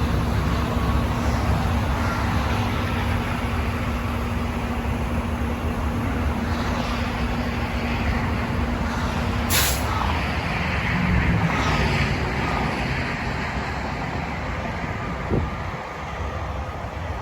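Truck driving, with steady engine and road noise and a steady low hum through the first half. About halfway through comes a single short hiss of air.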